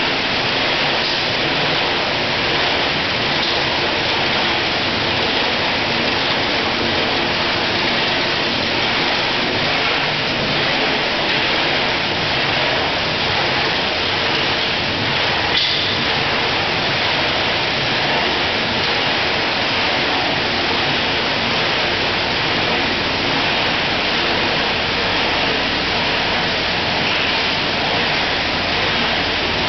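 Steady rush of water and running machinery on a shellfish processing line, with one brief knock about halfway through.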